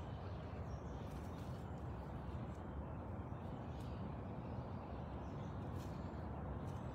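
Steady low outdoor background rumble with a few faint clicks.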